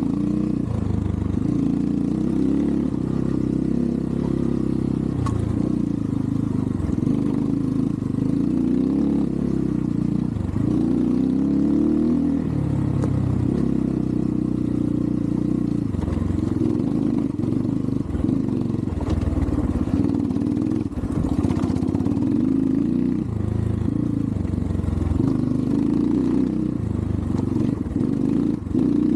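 Xpro Templar X 250cc dirt bike's single-cylinder four-stroke engine running under load, its revs rising and falling again and again as the throttle is worked.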